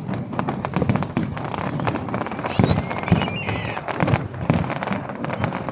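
Fireworks going off: a dense, continuous run of bangs and crackles, with a few high whistling glides about three seconds in.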